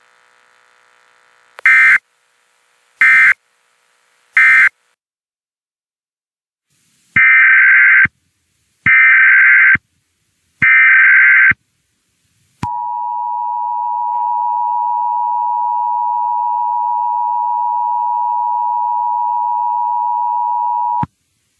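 Emergency Alert System signals: three short SAME data bursts (the end-of-message code), a pause of a few seconds, then three longer SAME header bursts for a new alert. These are followed by the EAS two-tone attention signal, a steady 853 and 960 Hz dual tone held for about eight seconds that cuts off sharply.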